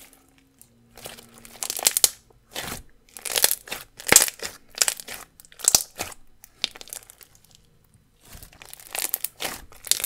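Hands squeezing and pressing a thick white slime filled with fishbowl beads and sprinkles, giving a string of crackling, crunching squishes, one every second or so, after a quiet first second.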